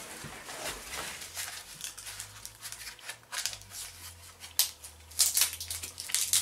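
Hands rummaging in a cardboard parcel: irregular rustling of the packing and the box, then a bottle being lifted out and handled, with several sharp clicks and knocks in the second half.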